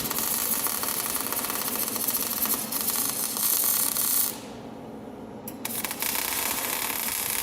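Welding arc crackling and sizzling in two runs, likely wire-feed (MIG) welding. It stops about four seconds in and starts again about a second and a half later.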